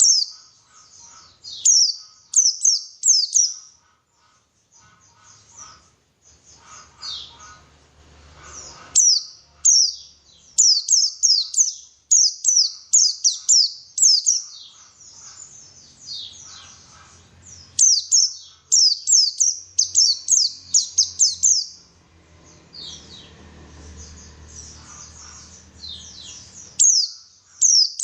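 White-eye (pleci) song: runs of high, thin chirps, each sweeping downward, several a second, in bursts of a few seconds broken by short pauses.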